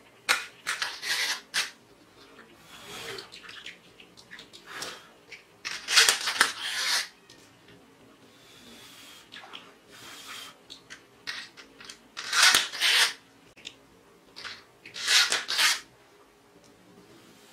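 Hands handling a plastic bubble-wand toy and blowing bubbles through the wand: several short hissing bursts, about five in all, with softer rustling and scraping of plastic between them.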